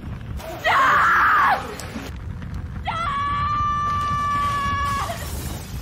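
Two screams over a steady low rumble from a fire. A short, loud cry comes about half a second in; a long scream held at one steady pitch starts about three seconds in and lasts some two seconds.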